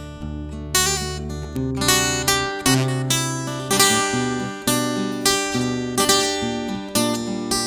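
Instrumental break in a song: acoustic guitar strummed in a rhythmic pattern over a sustained bass line.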